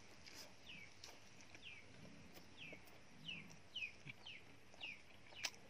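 A bird calling over and over, faint short chirps that fall in pitch, about one every half second to a second, with soft chewing and a single sharp click near the end.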